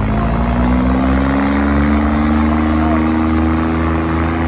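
Swaraj 855 and John Deere 5050D tractors' diesel engines running at full throttle under heavy load in a tug-of-war. The engine note rises a little over the first two seconds, then holds steady.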